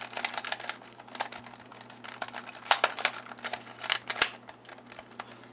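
Plastic cat-shaped 3x3 puzzle cube being turned by hand during a solve: irregular clicks and clacks as its layers are twisted, coming in small clusters.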